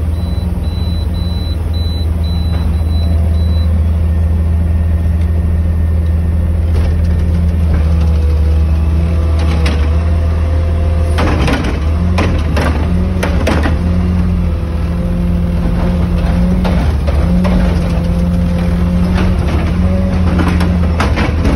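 Recycling truck's engine running with a steady low drone heard from inside the cab. A higher steady whine joins about a third of the way in, and clunks and rattles come in clusters around the middle and again near the end.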